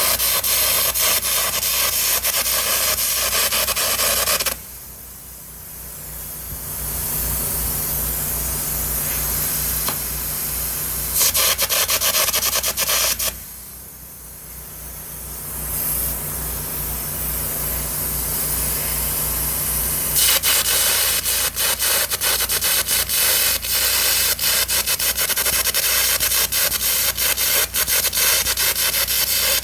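Carbon arc gouging with a 3/16-inch carbon at about 250 amps: a loud crackling arc with the hiss of the compressed-air blast. It runs for about the first four seconds, again briefly from about eleven to thirteen seconds, and steadily from about twenty seconds on; in the pauses only a quieter steady hum is left.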